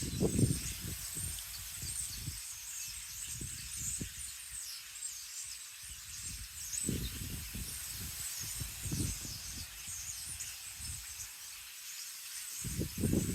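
Small birds chirping steadily in high, thin calls, with gusts of wind buffeting the microphone in low rumbles. The strongest gust comes near the end.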